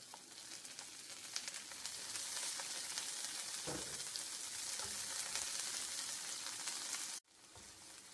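Wild asparagus and chopped onion sizzling in olive oil in a frying pan as they are stirred. The sizzle builds over the first couple of seconds, holds steady, then cuts off suddenly about seven seconds in.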